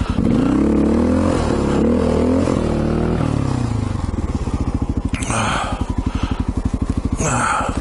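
Honda XR650 dual-sport motorcycle's single-cylinder four-stroke engine revving under load on a snowy climb, its pitch wavering up and down for the first three seconds. It then drops back to a low, even chugging of separate firing pulses.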